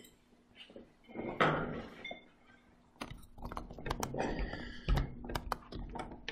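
A dull thunk about a second in, then from about halfway a busy run of clicks, taps and rustling knocks: handling noise from a touchscreen laptop or tablet being tapped and handled close to its microphone.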